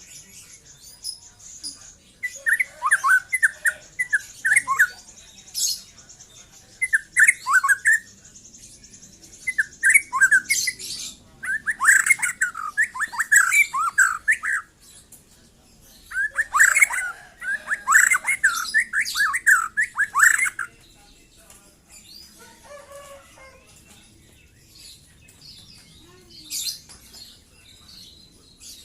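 Young white-rumped shama singing in bouts of quick, varied, sweeping phrases, then falling mostly silent for the last several seconds.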